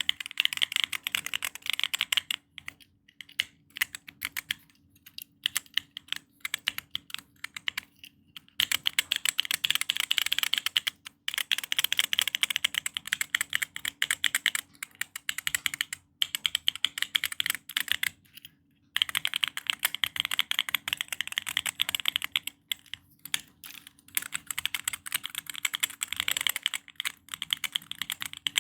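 Mechanical keyboard fidget toy's keys being pressed in quick clicking runs, with brief pauses between runs.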